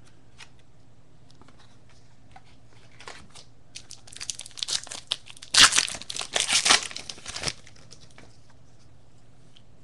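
Baseball card pack wrapper being torn open and crinkled: a few light rustles, then a loud burst of crinkling about halfway through that stops about two seconds later.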